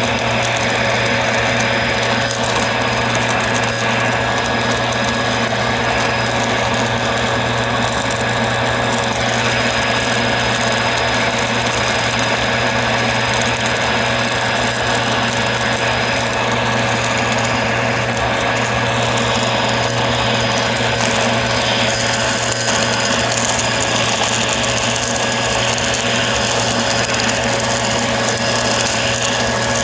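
Upright vacuum cleaner running steadily, its motor humming with a high whine, with a rattling, crunchy clatter of debris going up the brushroll. The sound shifts about two-thirds of the way through.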